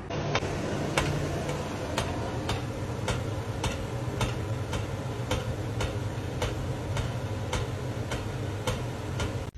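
Even, clock-like ticking, about two ticks a second, over a steady low hum.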